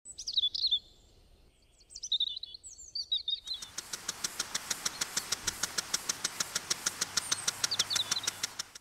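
Birds singing, then, about three and a half seconds in, an impact lawn sprinkler starts: rapid, even ticking of about six a second over the hiss of its water spray, with birds still chirping now and then.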